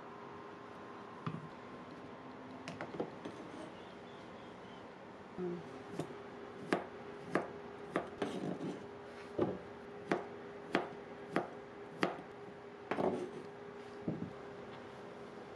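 Kitchen knife slicing through boiled kabocha squash and tapping a plastic cutting board: about ten sharp, evenly paced taps, roughly one and a half a second, starting about six seconds in, after a few softer knocks.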